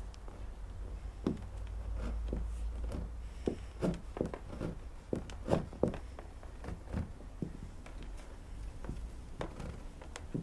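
Irregular light knocks and taps of hands working a rope through the bow holes and bumping the canoe hull, thickest in the middle, several a second.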